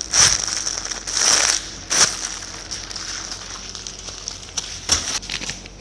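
Plastic packaging crinkling as packaged squishy toys are handled, in a few short rustling spells with sharp clicks between.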